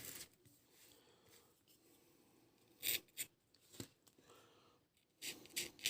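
Small knife scraping the burnt layer off the graphite discs of an electric sewing-machine foot pedal, faint short scrapes: a few around three seconds in and a quicker run of them near the end. The discs are charred, which is why they no longer conduct.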